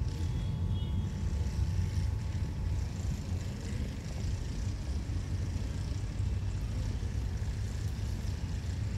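Steady low rumble of outdoor background noise, with no distinct sound standing out above it.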